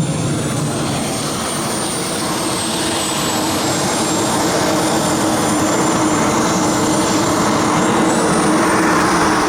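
Gas-turbine engine of a radio-controlled model jet in flight: a steady rushing roar with a high turbine whine that slides slowly up and down in pitch.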